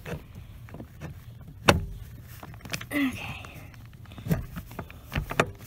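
Scattered knocks and clicks of a clutch master cylinder being handled and pushed into place against the pedal bracket under the dashboard, the sharpest knock about a second and a half in and a quick cluster near the end.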